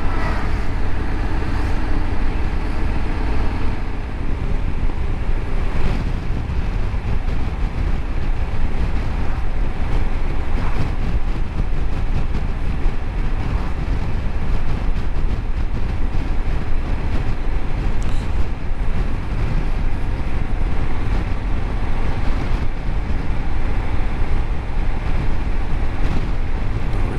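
Steady wind rush and road noise on the microphone of a Honda Africa Twin 1100 motorcycle being ridden, heavy in the low end and unbroken.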